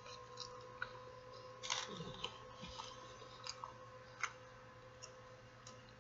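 Close-up chewing of a chicken taco: wet mouth smacks and clicks at irregular moments, over a faint steady hum.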